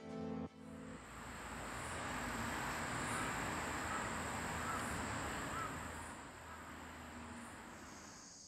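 Faint outdoor ambience: an even hiss that swells and fades, over a steady high insect drone, with a few faint bird calls.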